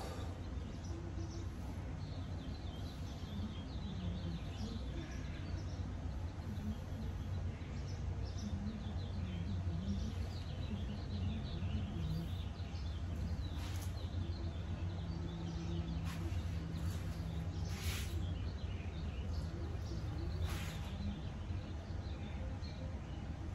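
Outdoor ambience: a steady low background rumble with faint bird chirps here and there.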